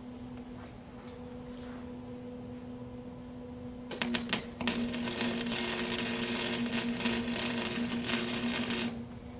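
Electric arc welding on steel cattle panel wire: a few sputtering arc strikes about four seconds in, then a steady crackling arc for about four seconds that cuts off near the end. A steady electrical hum runs underneath and grows louder while the arc burns.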